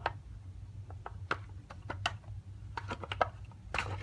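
Light clicks and taps of hard plastic as the Spin Master Hero Droid BB-8's drive mechanism is handled and shifted inside its plastic shell, about a dozen scattered through, over a low steady hum.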